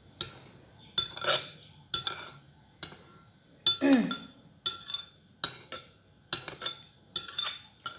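Utensils clinking against a pot or dish: a sharp strike with a short metallic ring about once a second.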